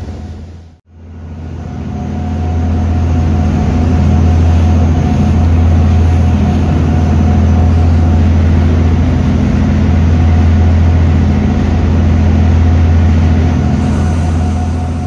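Sportfishing boat's engines running steadily at speed, a low drone with the rush of the wake and wind over the microphone. The sound cuts out briefly just under a second in, then rises back to the steady drone.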